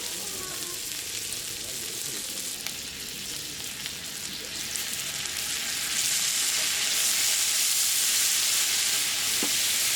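Food sizzling in a hot pan, a steady hiss that grows louder about six seconds in.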